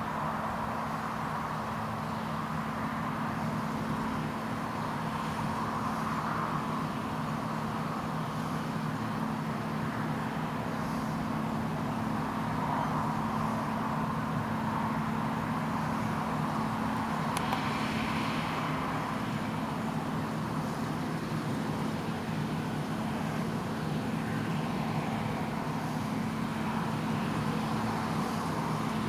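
John Deere T560 Hill Master combine harvester running steadily while cutting winter barley, its engine and threshing machinery making a constant drone.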